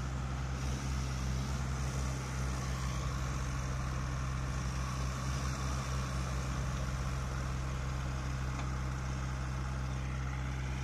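Diesel engine of a JCB backhoe loader running steadily at a constant speed, with an even low drone that neither rises nor falls.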